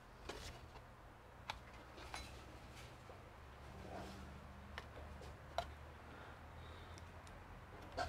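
A few faint, scattered light clicks and taps over a low steady hum.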